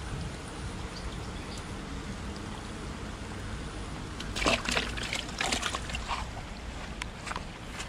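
A small tilapia splashing and thrashing in a bucket of water, in a cluster of short, loud sloshing bursts about halfway through, over a steady low rumble.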